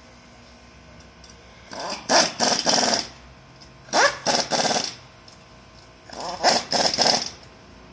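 A dog barking close by in three short bouts of about three barks each, roughly two seconds apart.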